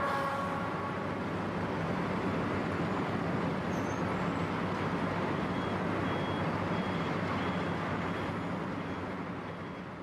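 Heavy diesel road-construction machinery, asphalt pavers and trucks, running steadily. A faint reversing beeper sounds about twice a second in the second half. The noise fades a little near the end.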